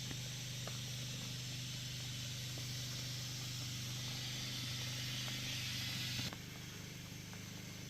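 Oxygen-acetylene gas hissing steadily out of the hose into a plastic garbage bag, over a low steady hum. Both drop suddenly about six seconds in.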